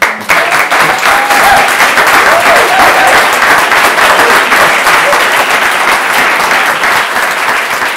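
A roomful of people applauding loudly, starting suddenly and slowly tapering off, with a few voices calling out over the clapping in the first few seconds.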